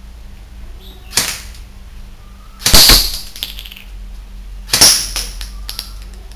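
E&C 604 airsoft electric rifle (M4-style AEG) firing single shots, three in all: a fainter one about a second in, then louder ones about three and five seconds in. BBs are striking small plastic targets on a tiled floor.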